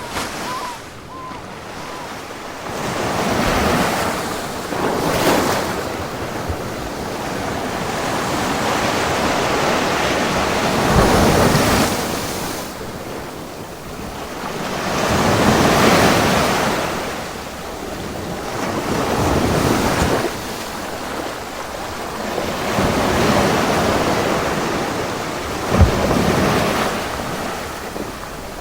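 Ocean surf: waves breaking and washing in, the noise swelling and falling back every few seconds, with a short sharp crash near the end.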